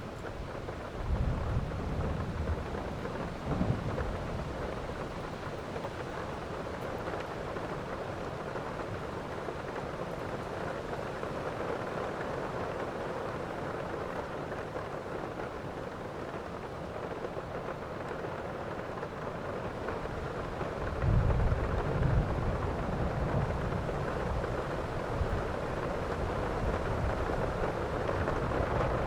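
Heavy rain falling steadily in a thunderstorm, with low thunder rumbling twice: once about a second in, and again, louder, about three-quarters of the way through.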